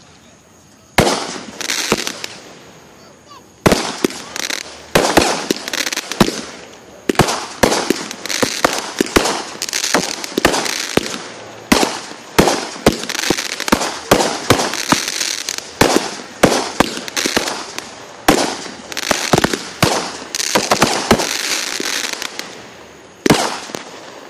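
Fireworks going off in a rapid, irregular run of sharp bangs and pops, at times several a second, with hissing in between; it starts about a second in and continues almost to the end.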